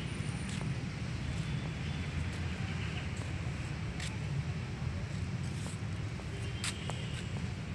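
Steady low outdoor rumble, with a few faint sharp ticks, one about four seconds in and a couple near the end.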